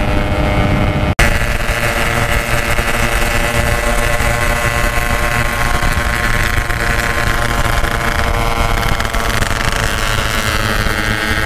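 Yamaha RX-King 135cc two-stroke motorcycles running at a steady cruise through their 'packing power' aftermarket exhausts, with several bikes riding together. The sound cuts out sharply for an instant about a second in.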